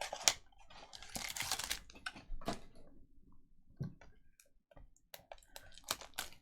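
Trading-card packaging and cards being handled at a table: a string of sharp clicks and taps with short crinkling rustles, the densest rustle about a second in.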